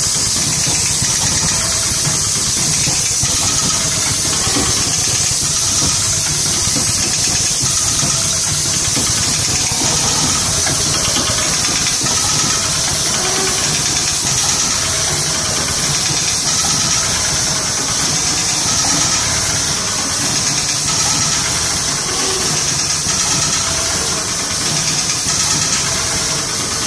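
Automatic vertical form-fill-seal powder stick-pack machines running: a steady mechanical clatter and hum with a constant high hiss.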